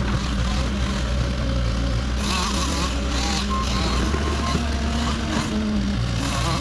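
Cat 308 excavator's diesel engine running steadily under work, with bursts of higher noise coming and going over the drone.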